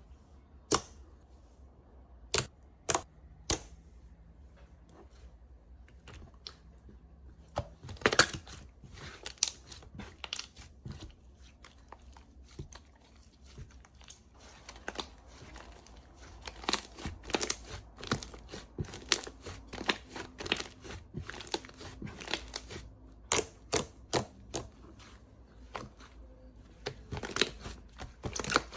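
Slime being pressed and poked by hand, giving sharp sticky clicks and crackling pops: a few spaced pops at first, then dense runs of crackling from about eight seconds in.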